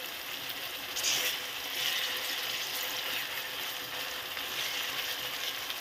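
Chopped onions, tomatoes and green chillies with ginger-garlic paste sizzling in hot oil in a kadai, while a steel spoon stirs the paste in. It is a steady frying hiss that grows louder about a second in.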